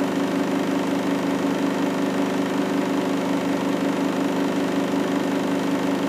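Front-loading washing machine running with a steady, even hum that does not change.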